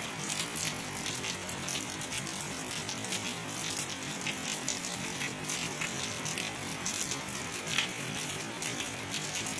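Steady rain falling: an even hiss dotted with many small sharp ticks of drops striking close by.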